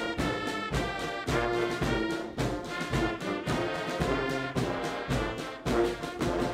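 Brass band music: brass instruments playing over a steady drum beat.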